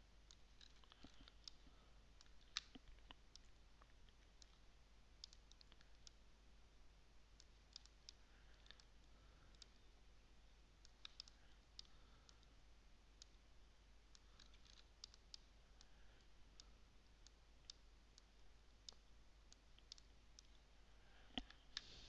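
Faint computer mouse clicks at irregular intervals over near-silent room tone, with a sharper click about two and a half seconds in.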